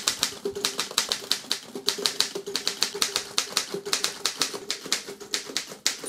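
Underwood No. 3 manual typewriter being typed on quickly: a steady run of typebars striking the platen, several sharp clacks a second.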